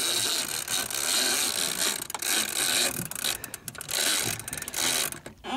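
Shimano Tiagra big-game lever-drag reel being cranked hard to wind in line on a hooked shark, its gears running in uneven bursts with brief pauses between turns.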